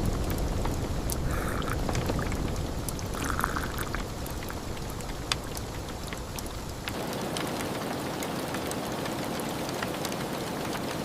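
Steady rain falling, with scattered sharp ticks of drops hitting a surface. About seven seconds in, the rain changes character and becomes a little quieter and thinner in the low end.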